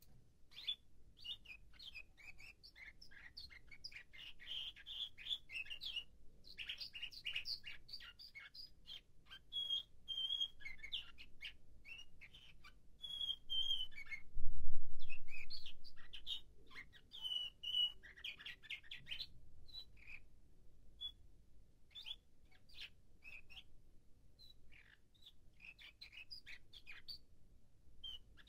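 Nightingale-song canary singing in runs of quick chirps, trills and short whistled notes, broken by brief pauses between phrases: a canary at work on its song arrangement (tertip). About halfway through, a dull low bump.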